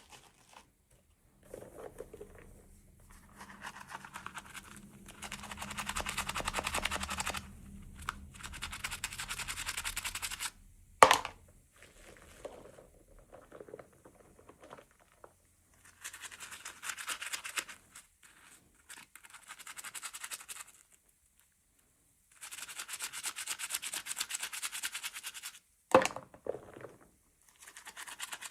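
Packaging being handled and opened by hand: bursts of scratchy rustling and rubbing lasting a few seconds each, with two sharp snaps, one about a third of the way in and one near the end.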